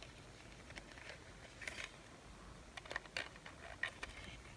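Faint small clicks and light scraping from model passenger cars being handled, with a few taps a little under two seconds in and a cluster about three to four seconds in.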